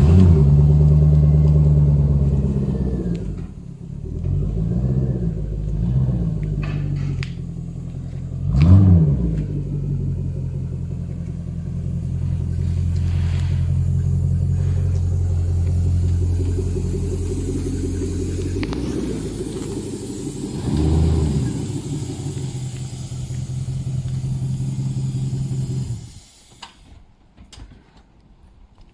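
1998 Jaguar XKR's supercharged 4.0-litre V8 running through an upgraded custom exhaust: a loud flare at the start that settles to idle, a couple of quick throttle blips, a sharp rev about nine seconds in, a steady low drone, another rev around twenty-one seconds, then the engine shuts off a few seconds before the end.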